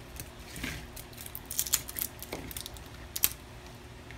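Scattered light clicks and taps of hands and a small cutting tool working the cells and wiring of a dismantled laptop battery pack, with a sharper click about three seconds in.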